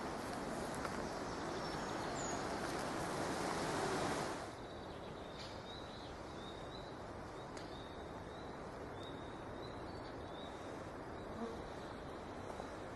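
Footsteps swishing through grass and undergrowth for about the first four seconds, then they stop. After that a small bird repeats short, high, slightly rising notes about once a second over a quiet woodland background.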